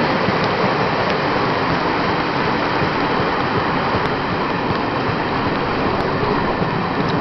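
Steady rushing noise of a locomotive-hauled passenger train running at speed, heard from on board: wind and wheels on the rails, with a few faint clicks.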